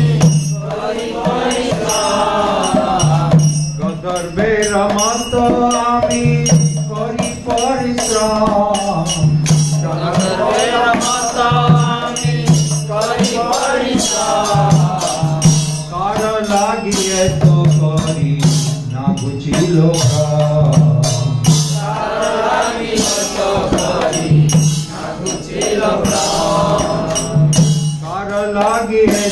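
Devotional singing of a Bengali kirtan-style song with melodic accompaniment, and jingling hand percussion keeping time.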